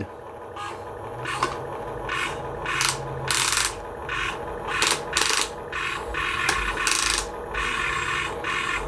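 Small RC construction vehicle's electric gear motors whirring, with a series of irregular scraping, rasping strokes from its plastic drive train and tracks.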